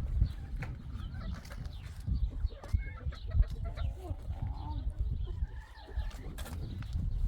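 Chickens clucking in short, scattered calls, over a low rumble and occasional knocks.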